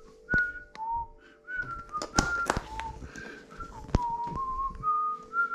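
A person whistling a slow tune: clear single notes that step up and down in pitch, each held under a second. A few sharp knocks from handling are mixed in, with a faint steady hum underneath.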